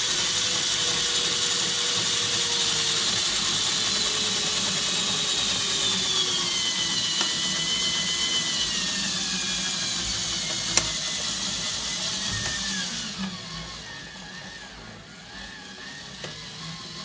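Small DC motor whining as it drives a gearbox of 3D-printed PLA herringbone gears, with the gear teeth meshing. The pitch falls slowly and steadily as the motor slows under a rising load. A sharp click comes a little before the sound drops off markedly, about two-thirds of the way through.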